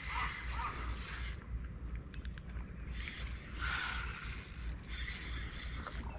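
Spinning fishing reel being wound in while fighting a hooked bass, a steady mechanical whirr with a few sharp ticks about two seconds in.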